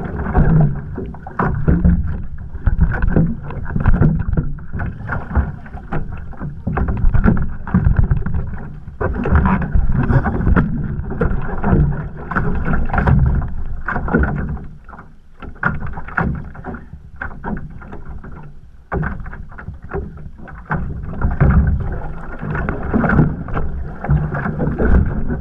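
Choppy water sloshing and splashing against an OC1 outrigger canoe's hull and float right by the microphone, with wind buffeting. It comes in irregular surges and eases off for a few seconds around the middle.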